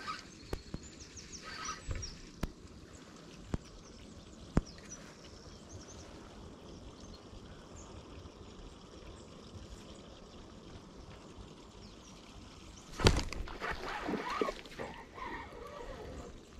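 Spinning rod and reel during a lure retrieve: a few sharp clicks from the tackle in the first seconds. About thirteen seconds in comes a louder burst of splashing water as the lure comes up at the bank.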